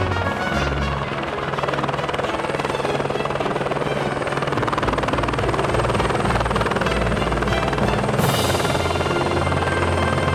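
Helicopter rotor and engine running with a fast, steady chop, under background music. A brighter rushing hiss joins about eight seconds in.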